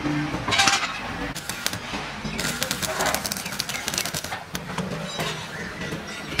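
Stick-welding arc on steel angle iron, crackling and sputtering. The crackle is densest for about two seconds, from about two and a half seconds in, with shorter bursts before it.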